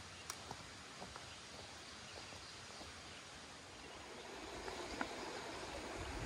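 Steady rush of a rocky woodland stream, with a few faint taps scattered through it, growing somewhat louder over the last two seconds.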